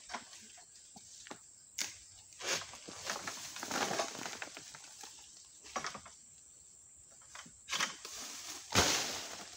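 A long pole sickle cuts into an oil palm crown during fruit harvesting: sharp cracks and scrapes of the blade, crackling and rustling of palm fronds, and a loud crash near the end as cut material hits the ground.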